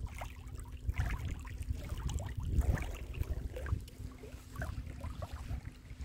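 Wind buffeting the microphone in uneven gusts, with small lake waves lapping and splashing. A faint steady hum runs underneath.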